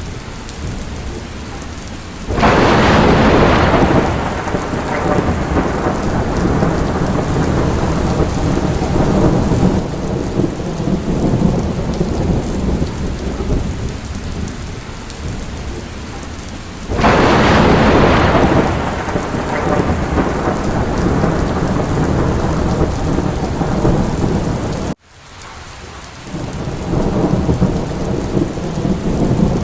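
Steady rain in a thunderstorm, with two thunderclaps, about two seconds in and again about seventeen seconds in, each breaking suddenly and rumbling away over several seconds. A few seconds before the end the sound cuts out abruptly and fades back in.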